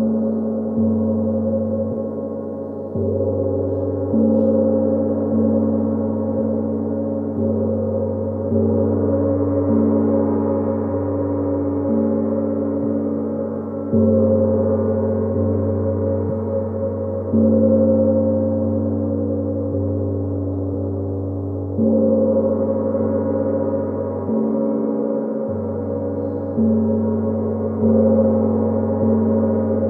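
A gong struck softly and repeatedly, a fresh stroke every two seconds or so, each ringing on under the next in a dense, low, sustained hum whose tones shift from stroke to stroke.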